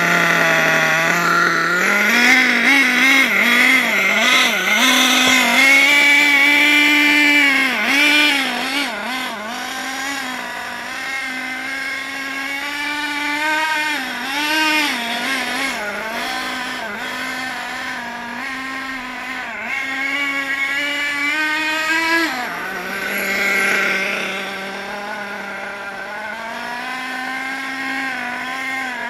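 Hot Bodies Lightning GT radio-controlled car's nitro engine running, revving up and down under throttle. It drops back to a steady idle about two-thirds of the way through and picks up again near the end.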